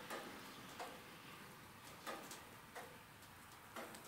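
Faint, irregular ticks, roughly one or two a second, over a low steady hiss.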